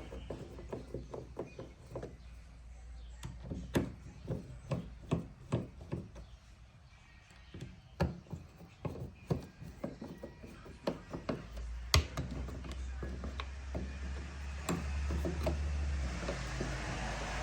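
Irregular clicks, taps and knocks from the rear cover of an Audi Q7 headlight being pressed back on and sealed, with a sharp knock about twelve seconds in. A low rumble joins shortly before that knock.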